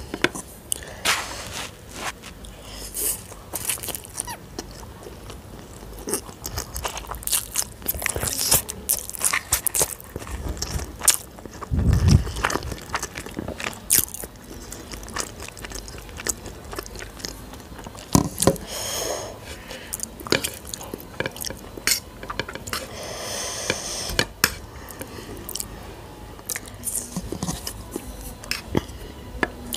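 Close-miked chewing of masala Maggi noodles, with wet mouth clicks and smacks coming irregularly. One low bump about midway is the loudest moment.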